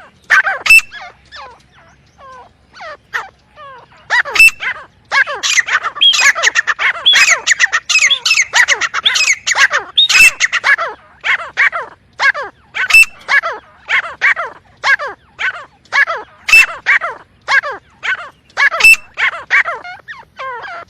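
Francolin (teetar) calling: a long run of short, harsh call notes, many falling in pitch, crowding into a dense overlapping chorus about five to ten seconds in and then spacing out again.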